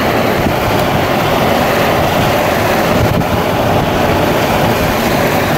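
Steady rush of wind and rain against a moving car, with road noise from the tyres.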